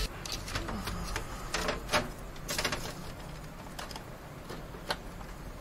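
Scattered clicks, taps and light knocks of hands handling an NZXT all-in-one liquid cooler's radiator and fans inside a PC case. The sharpest knock comes about two seconds in, with another near the end.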